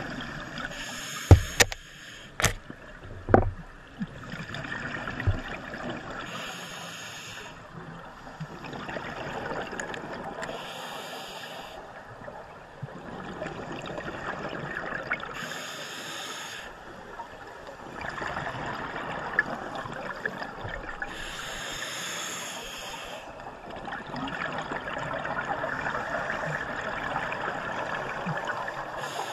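Scuba regulator breathing underwater: a rush of exhaled bubbles about every five seconds, over a steady watery hiss. A few sharp knocks come in the first few seconds.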